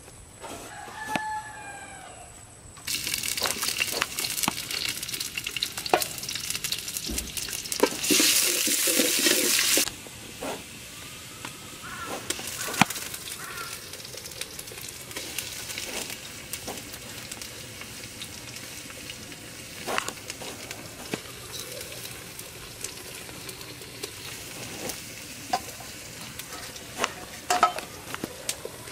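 A rooster crows in the first couple of seconds. Then food sizzles loudly as it fries in hot oil, loudest about eight to ten seconds in, and settles to a quieter sizzle with scattered clicks of a metal spatula against the cooking pot.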